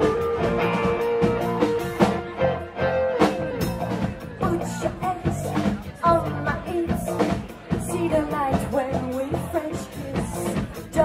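Live pop-rock band playing: guitar and drum kit with a steady beat, and a voice singing over it from about four seconds in.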